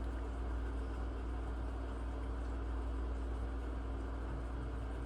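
A steady low hum with an even hiss and a faint constant tone, unchanging throughout: background noise of a running fan or appliance, with no handling sounds heard.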